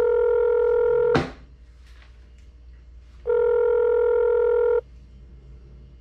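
Telephone ringback tone of an outgoing call waiting to be answered: two steady rings, each about a second and a half long and about two seconds apart. A sharp click sounds as the first ring ends, about a second in.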